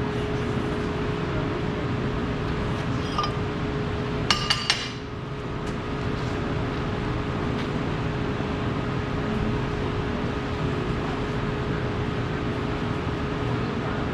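Steady workshop background noise with a continuous hum. A little over four seconds in, three sharp metallic clinks ring out in quick succession, like metal pieces striking one another.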